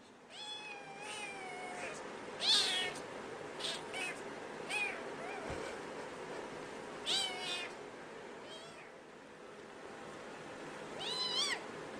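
A cat meowing repeatedly: about eight calls of varying length, some drawn out and falling in pitch, the loudest about two and a half seconds in.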